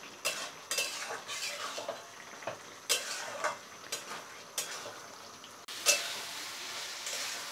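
Metal spatula scraping and clinking against a metal kadhai as a thick oyster-and-potato masala is stirred over high flame to cook off the last liquid. About two-thirds of the way through, the scrapes give way to a steady sizzle from the pan.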